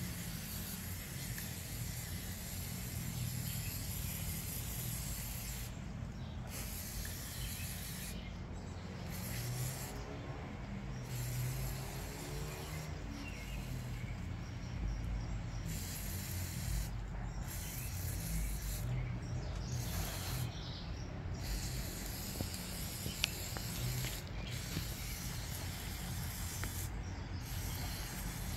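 WD-40 aerosol can spraying in a series of hissing bursts, with short pauses between them.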